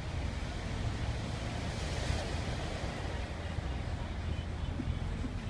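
City bus engine running with a steady low rumble, heard from inside the cabin, under an even hiss of rain and floodwater around the bus. The hiss swells briefly about two seconds in.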